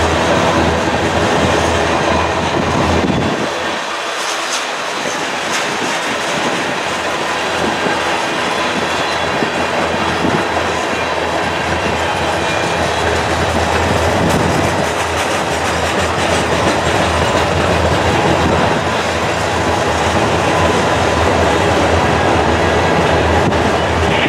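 Freight train of tank cars rolling past close by, steel wheels rumbling and clattering steadily over the rails.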